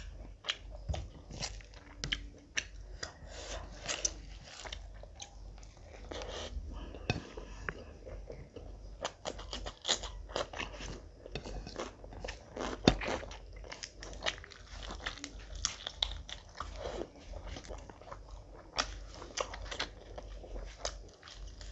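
Close-miked mouth sounds of a person eating by hand: chewing and crunching handfuls of rice and fried food, with many quick, sharp crackles.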